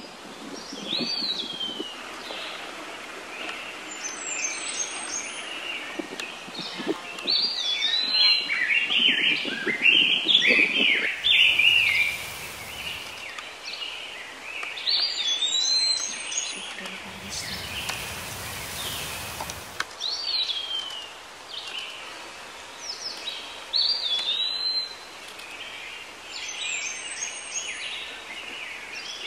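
Several birds calling and chirping, with repeated whistled calls that swoop down in pitch over a steady background hiss. Midway there are two short spells of a rushing noise.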